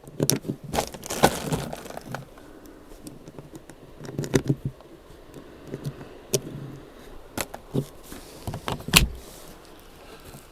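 Scattered small clicks and rattles of equipment being handled, coming in short clusters, with the loudest knock about nine seconds in.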